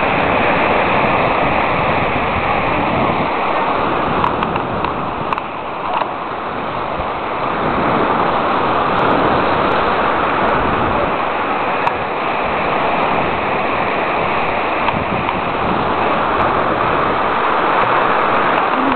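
Sea surf breaking and washing on the shore, a steady rushing noise.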